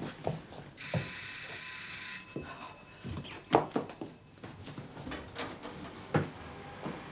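Electric doorbell ringing once, a steady metallic ring about a second and a half long. Then a few sharp thumps and bumps, the loudest about three and a half seconds in.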